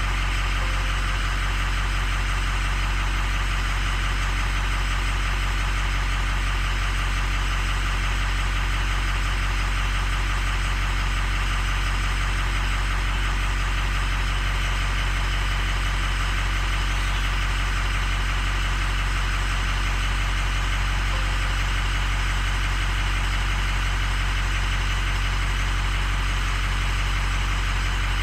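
Ford 6.0 L Powerstroke V8 turbodiesel idling steadily while still cold, coolant at only about 100 degrees, running evenly.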